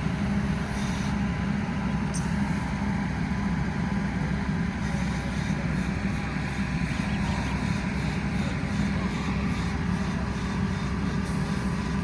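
Heavy vehicle's diesel engine running steadily with an even low drone.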